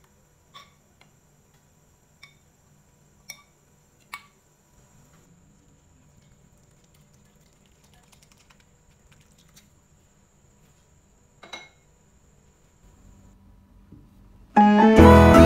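A few light clicks and taps of a metal spoon against a nonstick frying pan as food is scraped out onto a plate, then faint soft sliding and a single clack of dishware. Background music comes in loudly near the end.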